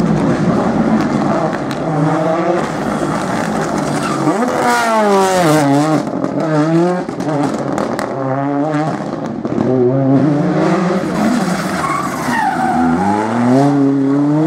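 Rally car engines revving hard through a tight turn, their pitch repeatedly rising and falling as they brake, shift and accelerate. The pitch drops sharply about five seconds in and climbs steadily near the end as a car accelerates away.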